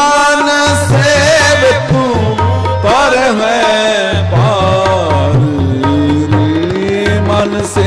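Gurbani kirtan: a singer draws out a gliding, ornamented melody on sustained vowels, accompanied by harmonium and tabla keeping a steady beat.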